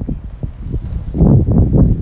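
Wind buffeting the microphone: an uneven low rumble that comes in gusts, loudest in the second half.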